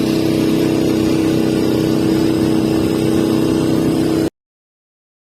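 Camera drone's propellers humming at a steady pitch as it hovers close by, then cut off abruptly about four seconds in.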